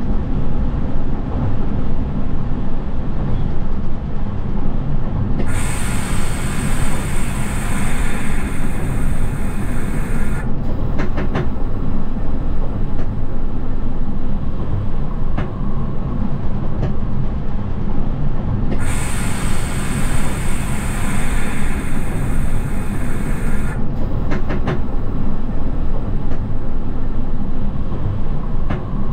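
Bernese Oberland Railway narrow-gauge electric train running on plain adhesion track: a steady low rumble of wheels and motors, with a few sharp clicks. Two stretches of high hiss, each about five seconds long, start about five seconds in and about nineteen seconds in.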